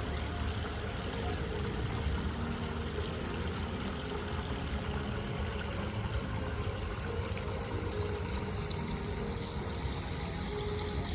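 Running water, a steady rush that keeps an even level throughout.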